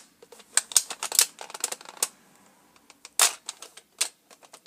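Nerf Retaliator toy blaster's plastic mechanism being worked by hand: a series of sharp plastic clacks and small clicks, with the loudest clacks at about one, three and four seconds in.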